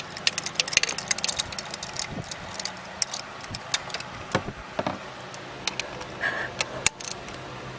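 Hand ratchet clicking in quick runs of ticks, with metal clinks from the spark plug socket and extension, as spark plugs are backed out one after another.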